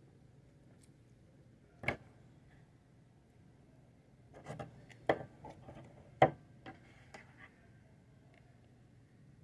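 Orange putty slime handled and pulled out of a plastic tub on a table, giving a single sharp tap about two seconds in, then a run of sharp clicks and small squishy pops from about four and a half to seven and a half seconds.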